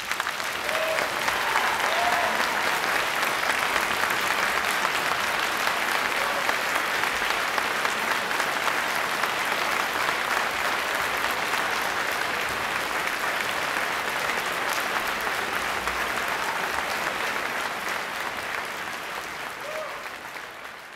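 A large audience applauding steadily, dying away near the end.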